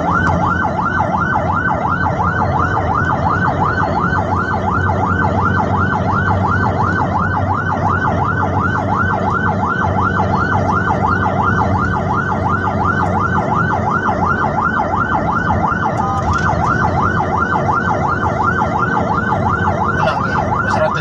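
Ambulance siren in a fast yelp, its pitch sweeping up and down about three times a second without a break, heard from inside the moving vehicle over engine and road noise.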